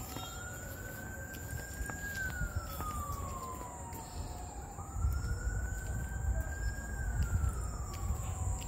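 Emergency vehicle siren wailing, two slow cycles that each rise, hold and then fall, over a low rumble that grows louder about halfway through.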